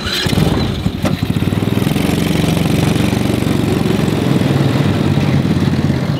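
A mini Jeep's small engine starts on the key, catching at once, and settles into a steady idle.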